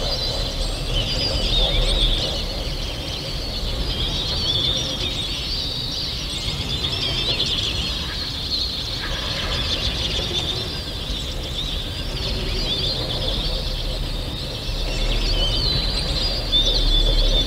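A dense chorus of many small birds chirping and chattering all at once, over a low rumble that grows stronger near the end.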